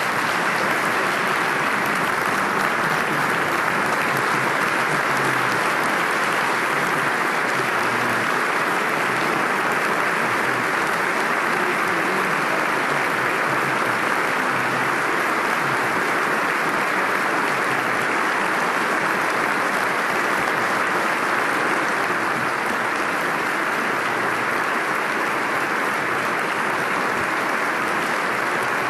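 A large audience applauding steadily at length, greeting the end of a speech; the clapping eases a little after about twenty seconds.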